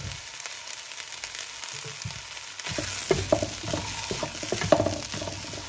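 Vegetables sizzling in a hot frying pan as cooked rice is tipped in. From about three seconds in, a spatula stirs the rice and vegetables, with a quick run of scrapes and knocks against the pan.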